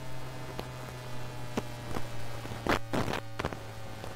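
Magnetic-field pickup-coil recording of a 1996 Tube Stock's GEC Alsthom GTO-VVVF traction inverter: a steady electrical hum with a fainter higher tone sliding slowly downward. A burst of loud crackles breaks in about three seconds in, with a few single clicks elsewhere.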